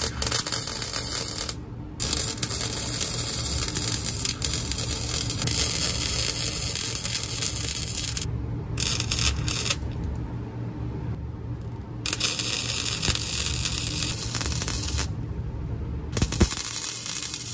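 Flux-core wire-feed welder arc crackling and sizzling as a bead is laid on steel exhaust tubing at a glass-pack muffler joint. It comes in about five runs with short breaks between them, over a steady low hum.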